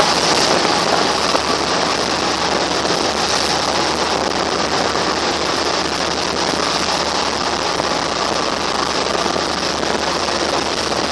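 Pilot boat underway close alongside a ship's hull: a loud, steady rush of water and wind, with the boat's engine running underneath.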